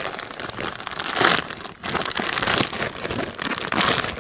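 Plastic packaging bag crinkling and rustling as it is handled and opened, in irregular bursts that are loudest about a second in and again near the end.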